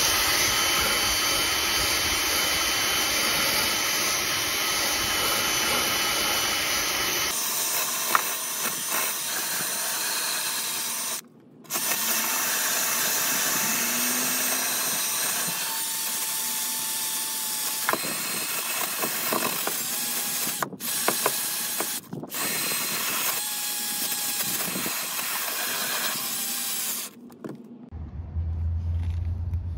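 Cordless drill spinning a wire wheel brush against a rusty sheet-steel car floor pan, scouring off surface rust. It runs steadily, stops briefly a little over a third of the way in and twice more in quick succession later, then stops shortly before the end.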